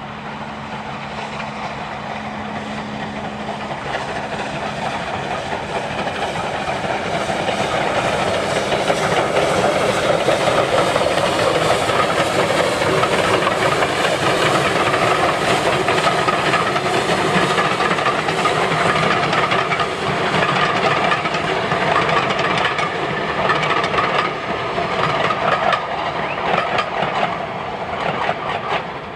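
Rebuilt Bulleid Battle of Britain class Pacific No. 34053, a three-cylinder steam locomotive, working hard up the bank with a rapid beat of exhaust and hiss of steam. It grows louder as it draws near and passes close by, then its train of coaches rolls past with a clickety-clack on the rails.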